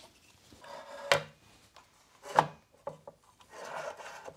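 Hard plastic parts handled on a wooden workbench as a 3D-printed air-amplifier hoop is taken off a blower's outlet pipe: a few sharp clicks and knocks, the loudest about halfway through, with rubbing and scraping between.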